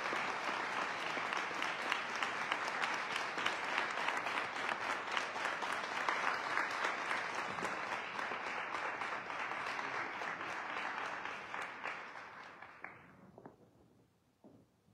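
Audience applauding steadily, the clapping thinning out and dying away about thirteen seconds in.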